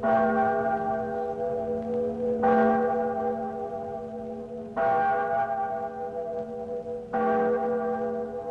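A bell struck four times, about every two and a half seconds, each stroke ringing on with several steady tones until the next.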